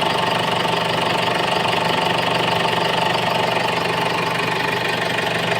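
Ford Everest diesel engine idling steadily, with an even diesel knock and no change in speed. The mechanic puts the truck's low power down to faulty MAP and MAF sensors.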